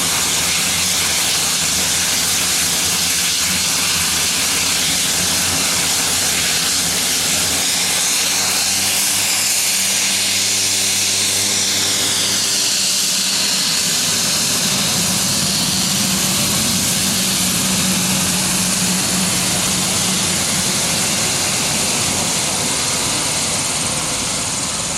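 Dornier 228-212's twin Garrett TPE331 turboprop engines running at taxi power: a loud, steady turbine whine and hiss over a low propeller drone. The pitch bends as the aircraft passes about halfway through, and the sound fades slightly near the end as it moves away.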